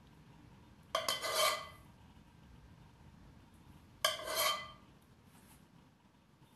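A metal spoon clinks and scrapes against a ceramic serving dish twice, about a second in and again about four seconds in, each with a short ring, as sauce is spooned over the roast chicken.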